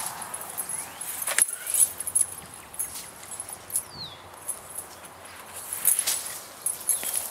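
Conifer branches and foliage rustling and cracking in irregular short clicks as a person hangs and swings from them hand over hand. A few louder snaps come about a second and a half in and again about six seconds in, and a short falling whistle is heard near the middle.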